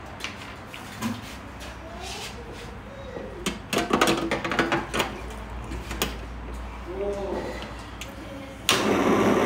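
Eating at the table: chopsticks clicking and clinking against bowls, thickest about four seconds in, with brief murmured voices. Near the end comes a loud burst of rushing noise lasting about two seconds.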